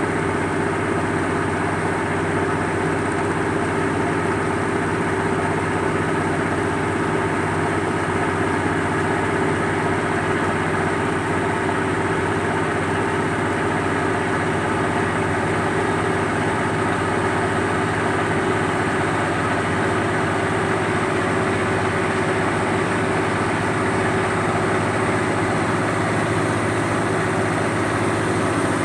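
Turbocharged truck engine fitted in a boat, running steadily at an unchanging pitch.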